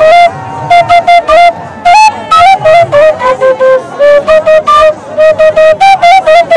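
End-blown flute played loud into the microphone: a run of short, clipped notes, mostly on one or two pitches that step a little higher and lower, in quick clusters with brief gaps between them.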